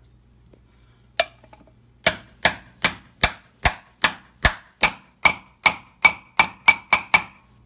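Hammer striking a steel socket to drive a new inner rear wheel bearing into a brake drum hub: one blow, then a steady run of about fifteen sharp metallic blows, quickening a little toward the end, the later ones with a ringing note as the bearing goes home.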